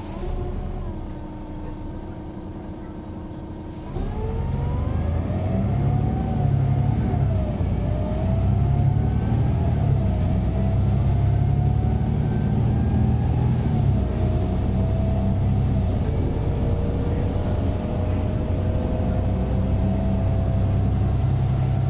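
The DAF PR228S diesel engine of a Van Hool AG300 articulated bus, heard from inside the cabin. After a brief hiss and a few seconds of steady idling, the bus pulls away about four seconds in. The engine note rises and a whine climbs in pitch, dropping back several times at the gear changes.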